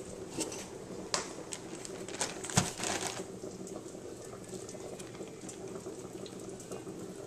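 Covered pots bubbling on the stove, a steady simmering boil. Over it come a few sharp clicks and knocks as pork chops are handled into a plastic bag of flour; the loudest knock comes about two and a half seconds in.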